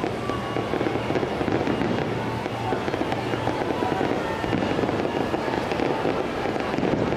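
Aerial fireworks display of 3-inch shells bursting and crackling in rapid, continuous succession, with music playing underneath.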